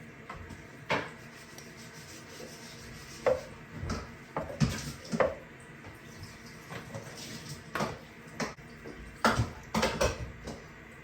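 Kitchen dishes and utensils clattering: a dozen or so scattered knocks and clinks, with several coming close together near the end.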